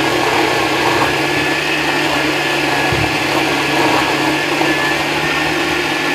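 Electric mixer grinder running steadily, its stainless steel jar whipping egg whites and oil into thick mayonnaise.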